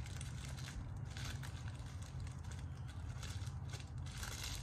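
Plastic snack wrapper crinkling and tearing as it is pulled open by hand, in a few short bursts over a steady low rumble.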